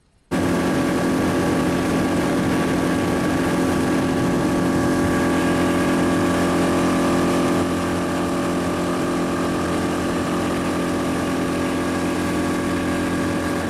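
Mercury outboard motor running at a steady speed, driving the boat along. It starts abruptly and its level eases slightly about halfway through.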